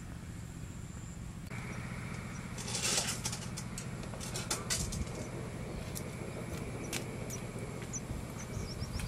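Clicks and clatter of bowls and vegetables being handled, brightest in a cluster about three seconds in, over a low steady rumble. A faint steady high tone runs under it, and a few short bird chirps come near the end.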